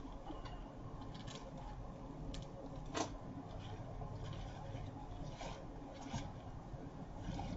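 Hands rustling and rubbing artificial greenery, wired ribbon and deco mesh while working a last piece of greenery in around the bow, with scattered small rustles and one sharp click about three seconds in.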